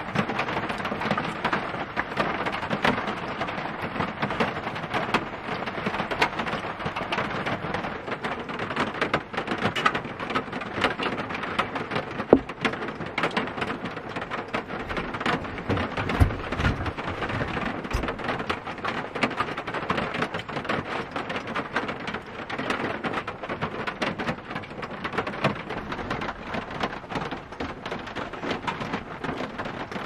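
Heavy rain falling on a Dodge Sprinter camper van, heard from inside: a steady dense hiss of rain with many separate drop hits. One sharp louder tick about twelve seconds in and a few deep thumps a little after halfway.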